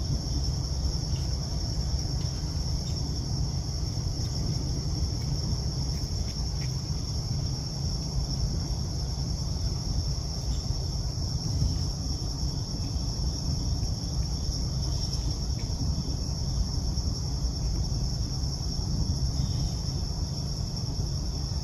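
Insect chorus: a continuous high-pitched drone that holds steady throughout, over a steady low rumble.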